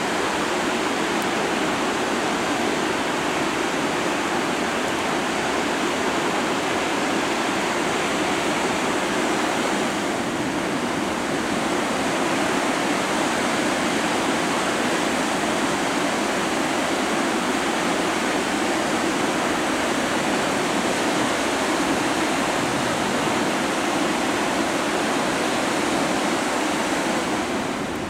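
Cohoes Falls on the Mohawk River at flood stage: a steady, heavy rush of high floodwater pouring over the falls, dipping slightly just before the end.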